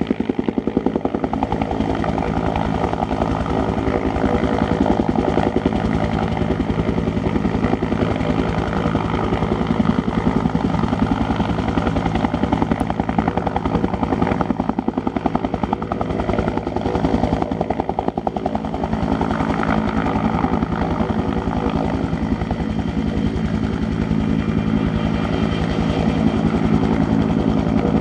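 Agusta-Bell 205 helicopter hovering low, its two-bladed main rotor beating rapidly and steadily over the continuous run of its turboshaft engine.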